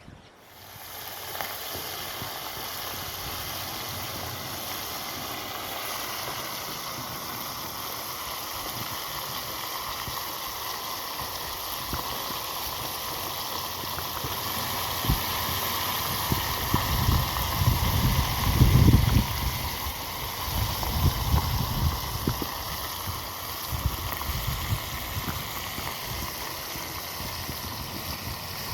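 Steady rush of flowing water, with low rumbling thumps for a few seconds past the middle.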